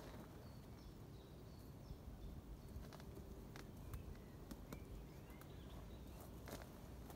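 Quiet outdoor ambience: faint, short, high bird chirps, with a few light clicks and crunches of someone moving about on dry twigs and undergrowth.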